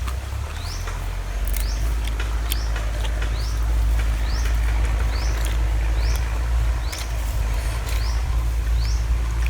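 A bird calling over and over, each call a short rising chirp about one and a half times a second, over a steady low rumble.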